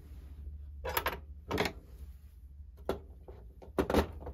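Handling noises as a Seth Thomas 89 clock movement is taken apart: four or five short clicks and knocks of tools and parts, irregularly spaced, with the loudest near the end, over a faint steady low hum.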